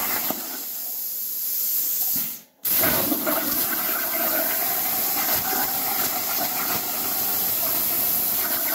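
Plasma torch of a CNC plasma table cutting sheet metal: a loud, steady hiss with a whine running through it. It breaks off for a moment about two and a half seconds in, then starts again.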